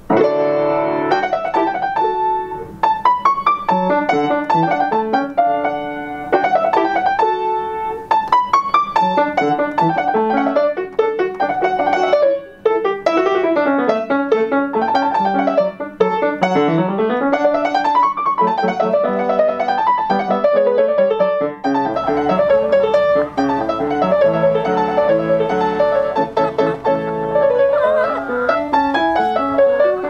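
Solo piano playing a fast piece of quick running notes, with scale runs sweeping up and down.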